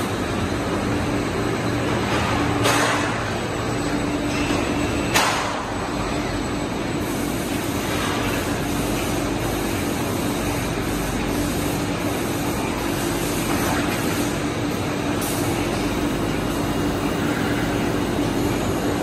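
Hot-forging plant machinery running: a steady industrial noise with a continuous low hum, broken by two sudden sharp sounds about three and five seconds in.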